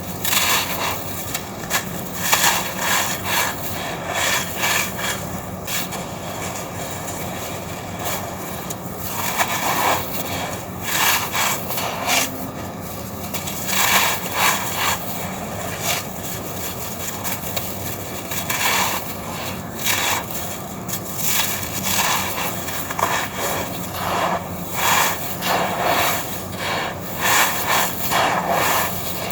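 Gritty crunching and crumbling of red sand-and-cement chunks being crushed, in repeated clusters of crackling grainy crunches with short pauses between.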